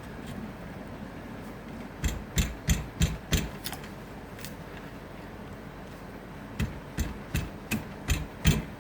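Sharp knocks of a hand tool being struck into a piece of acacia wood to cut a stop line so the wood doesn't split further: two runs of about six blows, roughly three a second, the second starting about six and a half seconds in.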